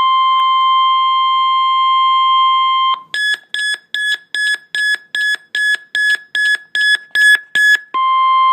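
Weather radio alert alarm signalling an incoming severe thunderstorm watch: a loud steady high tone for about three seconds, then about a dozen short, higher-pitched beeps at nearly three a second, then the steady tone again.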